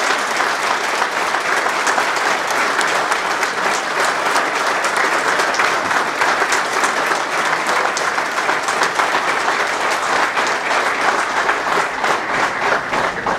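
Audience applauding: many hands clapping steadily in a dense patter, dying away right at the end.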